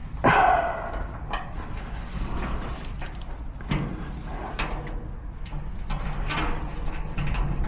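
Lock-picking tools clicking and scraping in a garage door lock cylinder, with a louder knock near the start and several lighter clicks after it, over a steady low rumble.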